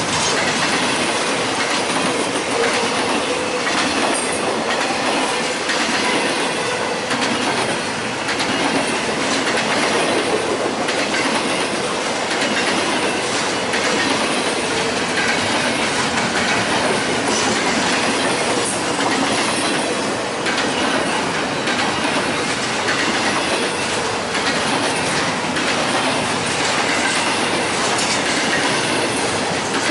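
Railroad cars of a passing train rolling by at a steady pace: continuous wheel-on-rail noise with faint clicks scattered through it.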